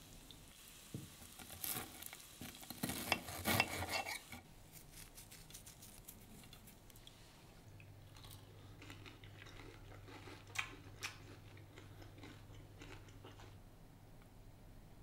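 Knife and fork cutting through a seared, butter-cooked steak on a plate: a dense run of crackly cuts and cutlery clicks for about three seconds. After that, fainter chewing and a couple of sharp clicks.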